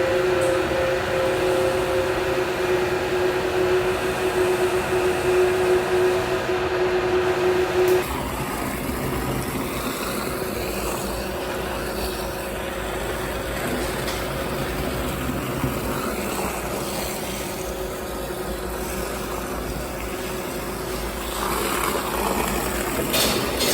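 Winery machinery running with a steady two-tone hum. About 8 s in, the hum cuts off and gives way to a lower, even rumbling noise of machinery.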